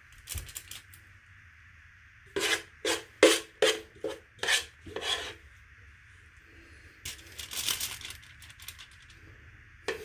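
A metal spoon scraping thick no-bake cookie mixture out of a pot: about six short scrapes in quick succession, then a second run of scraping a few seconds later.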